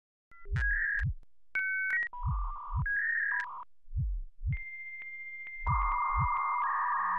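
Heartbeat sound effect: slow double thumps, lub-dub, about every second and a half, under synthesizer tones and beeps.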